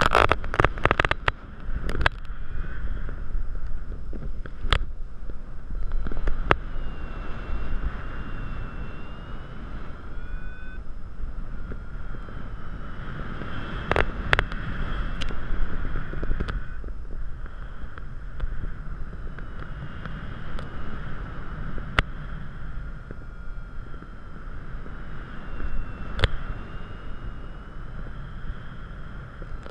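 Wind buffeting a GoPro Hero 3 on a paraglider in flight: a steady rushing noise with a faint wavering high whistle, and sharp clicks, several in quick succession at the start and single ones every few seconds.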